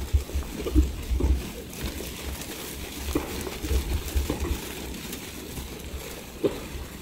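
A large flock of sheep and goats walking past on dry gravel: the steady patter and shuffle of many hooves, with recurring low thumps.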